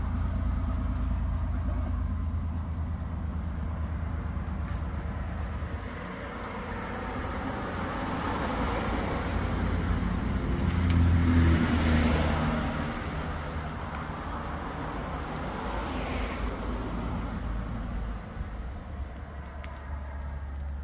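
A motor vehicle passing by: its engine and road noise build, peak a little past the middle and fade away, over a steady low rumble.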